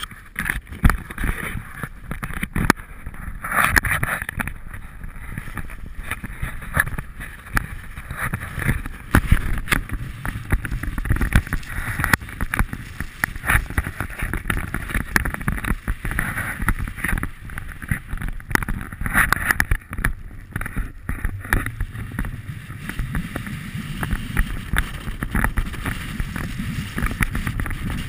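Wind rushing over an action camera's microphone while riding down a snowy slope, with the rough scrape and rumble of sliding over snow and scattered knocks and clicks from handling the camera.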